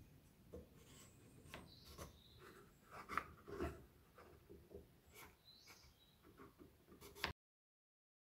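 Faint clicks, taps and rubbing of small wooden pieces being handled and set against a clamp on a jig, with a few sharper knocks among them; the sound cuts off abruptly near the end.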